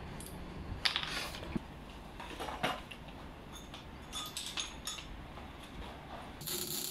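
Metal clinks and knocks as steel exhaust pipe sections and tools are handled on a workshop floor: a few sharper knocks about a second in and again near the middle, then lighter clinks. A steady high hiss begins just before the end.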